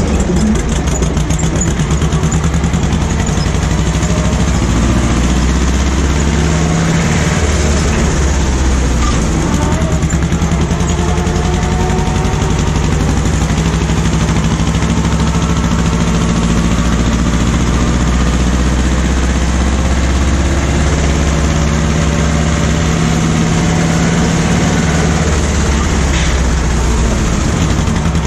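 Ursus C-330M tractor's two-cylinder diesel engine running steadily, its pitch shifting slightly a few times.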